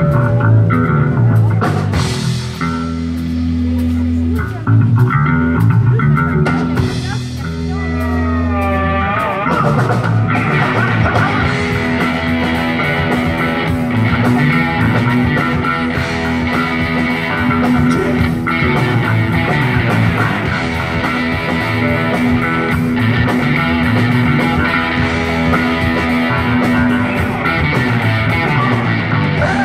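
Live rock band playing with electric guitars, bass and drums. It opens on held low notes, guitar pitch slides sweep up and down about eight seconds in, and then the full band settles into a steady repeating groove.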